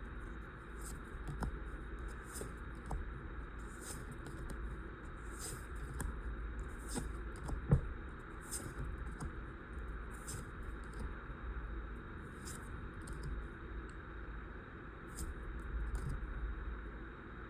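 Pokémon trading cards being handled and slid one behind another, making light repeated flicks and rustles about once a second, with one louder tap about eight seconds in.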